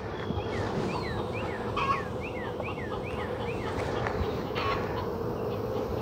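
Honeybees humming steadily around the hive. A bird calls a quick run of short, falling chirps through the first half.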